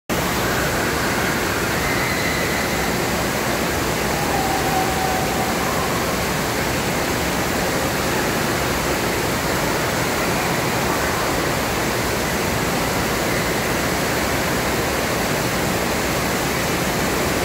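Water pouring steadily out of a tube waterslide's exit into the splash-down pool: a constant, even rush.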